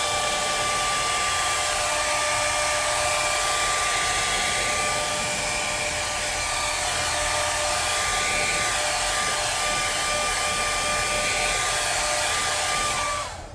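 Handheld hair dryer on its cold setting blowing steadily, a rush of air with a steady whine, used to speed the drying of leather repair filler. It is switched off near the end, the whine dropping as it winds down.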